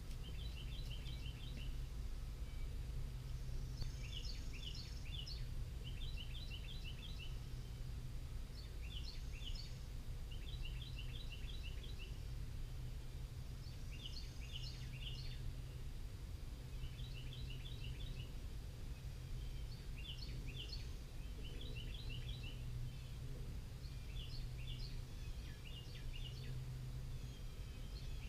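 Songbirds singing short phrases of quick, high chirps every two to three seconds over a steady low rumble.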